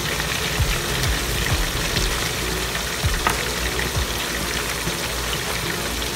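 Chicken pieces shallow-frying in hot oil in a wok: a steady sizzle and bubbling of the oil, with a few small pops.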